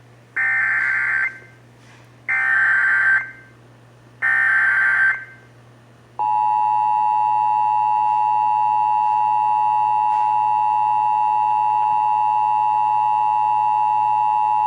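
Emergency Alert System broadcast tones. Three bursts of SAME digital header data, each about a second long, come about two seconds apart. About six seconds in, the EAS two-tone attention signal (853 and 960 Hz sounded together) starts and holds steady for about eight and a half seconds.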